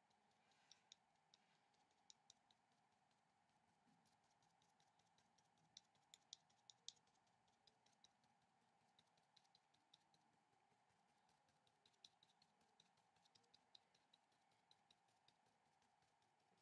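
Near silence broken by faint, irregular ticks of a paintbrush dabbing watercolour onto paper, in small clusters, over a faint steady hum.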